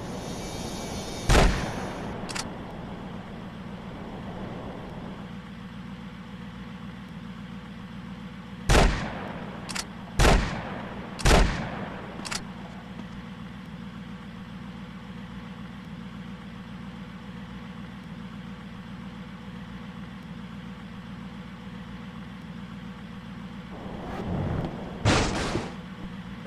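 A baler running with a steady low hum, broken by loud heavy bangs: one early, three close together in the middle, and another near the end. Some of the bangs are followed by a lighter click.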